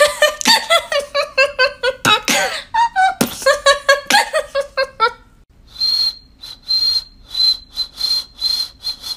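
A quick run of short pitched vocal notes and mouth clicks. After a brief pause, a high-pitched mouth whistle in about seven short, evenly spaced chirps, a beatboxer's imitation of a cricket chirping.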